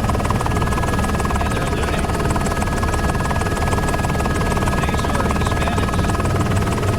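News helicopter running in flight, heard on board: a steady rotor rumble with a rapid even pulsing and a steady high whine.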